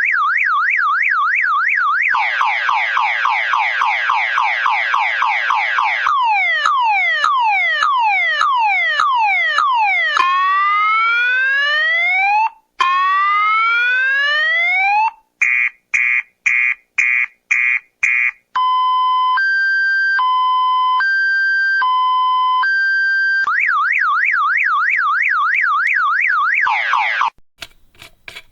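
Car alarm siren cycling through its tone patterns: a fast warble, rapid chirps, falling sweeps, rising whoops, quick pulsed beeps and a slow two-tone hi-lo, then back to the warble before it cuts off near the end.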